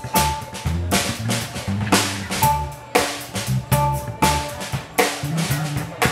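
Live instrumental trio playing: a drum kit keeps a steady beat of kick, snare and cymbal hits, out in front of electric bass and keyboard.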